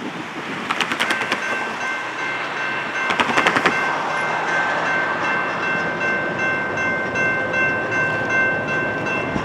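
Grade-crossing warning bell ringing in a steady repeating pattern, starting about a second in as the crossing activates ahead of the train. Two quick clusters of clatter come from car tires rolling over the crossing rails.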